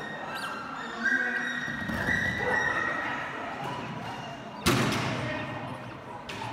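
A single loud thump about two-thirds of the way through, ringing on in a large echoing hall, with a shorter knock near the end. Before it come high, drawn-out calls.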